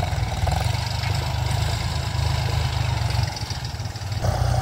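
Iseki 35 tractor's diesel engine running steadily as a low rumble while pulling a six-disc plough through the field. It dips briefly about three and a half seconds in, then picks up again.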